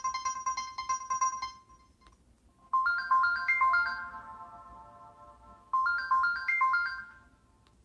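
LG Rumor 2 cell phone ringtones. One ringtone's fast repeating electronic pattern ends about a second and a half in. After a short pause, another plays a short rising run of chime-like notes twice, each ringing on and fading.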